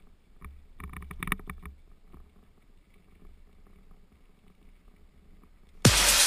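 Faint, muffled rumble of a mountain bike rolling down a dirt road, heard through a helmet camera, with a brief louder sound about a second in. Near the end, loud electronic dance music with a steady kick drum cuts in suddenly.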